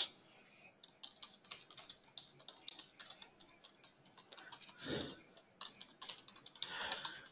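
Typing on a computer keyboard: a quick, irregular run of faint key clicks, with a brief soft noise about five seconds in.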